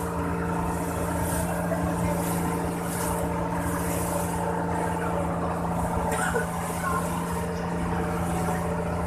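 Pump boat's inboard engine running steadily at cruising speed, a constant drone, with water hissing and splashing against the hull and bamboo outriggers as the boat rides through choppy wake.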